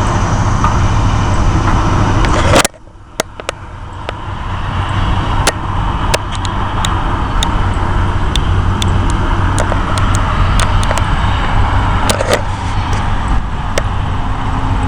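Steady engine rumble with a low hum. It drops out abruptly about two and a half seconds in, then builds back up over a few seconds with scattered sharp clicks.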